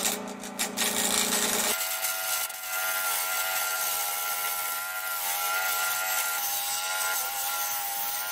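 Wood-turning tool cutting into the rim of a chestnut blank spinning on a lathe: a steady scraping hiss with a ringing whine, starting a little under two seconds in. Before that, the lathe's motor hums with a few light knocks.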